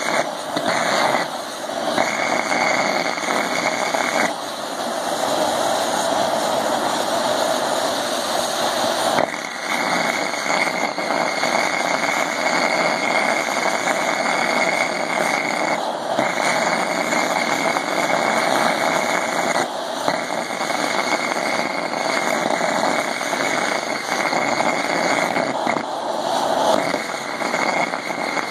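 Hand-held gas torch and a small waste-oil forge burner, both flames roaring steadily and roughly while the torch heats the burner's vaporiser pipe. A high whistle over the roar cuts out and comes back several times.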